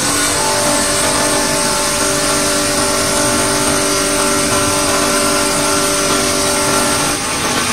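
Vibratory bowl feeder running, shaking plastic bottle caps around its bowl: a loud, steady buzz with several held tones over a dense rattling noise. The lower tones drop out near the end.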